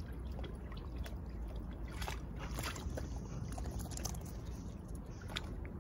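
A dog wading in shallow river water, sloshing and making small splashes, with scattered short clicks over a steady low rumble.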